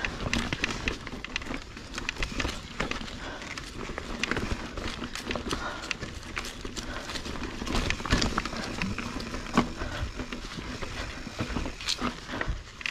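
Mountain bike rolling over rocky dirt singletrack: tyres crunching on dirt and rock, with frequent sharp clicks and rattles as the bike jolts over roots and rocks.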